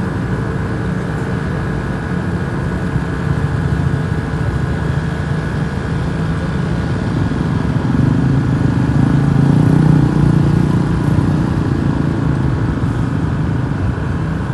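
Road vehicle engine running steadily, swelling louder for a few seconds in the second half.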